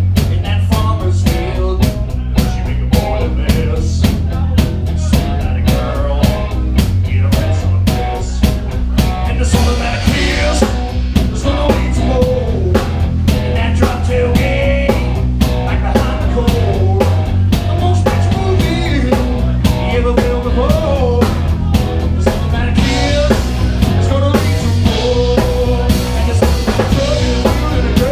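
Live rock band playing a song, with a drum kit keeping a steady beat over bass and guitar.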